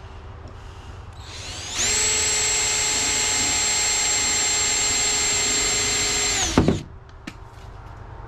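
Power drill spinning up to full speed, running at a steady high whine for about five seconds, then winding down with a falling pitch and a loud knock as it stops.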